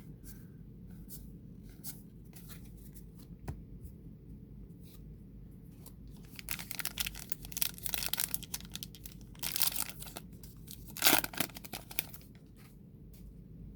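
Baseball card pack wrapper being torn open and crinkled: a run of dense crackling from about halfway in, with the loudest rip a few seconds later, after soft clicks of cards being handled.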